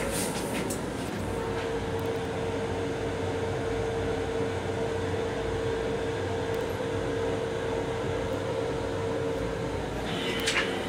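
Steady rumble and hiss of a Long Island Rail Road M7 railcar, heard inside its small restroom, with a steady hum at one pitch that sets in about a second in and fades near the end. A few short clicks near the end.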